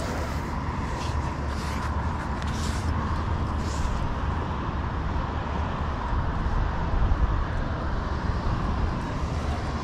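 Steady low outdoor rumble with no distinct event in it, the kind of noise that wind on the microphone or distant road traffic makes.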